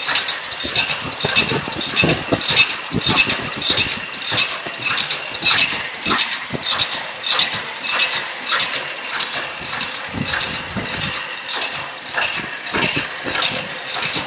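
High-speed paper cup making machine running, its indexing turret and forming moulds clattering in a steady beat of a little under two strokes a second, with a bright metallic ring on each stroke over a continuous hiss.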